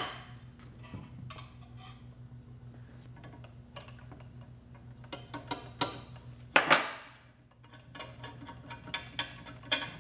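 Metal parts of an optical mounting assembly clinking and knocking as rods and pieces are handled and set down on a tabletop, with a ball driver at work. The clicks are scattered, with one louder clank that rings briefly about two-thirds of the way through and a quick run of small clicks near the end, over a steady low hum.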